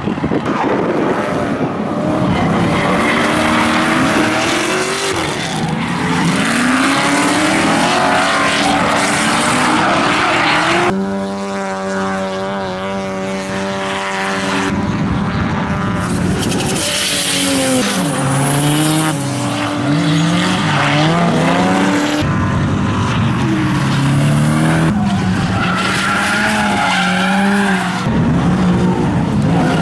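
Drift cars sliding through a corner: engines revving up and down at high revs over skidding tyres squealing, across a string of short clips. For about four seconds in the middle one engine holds a steady high note.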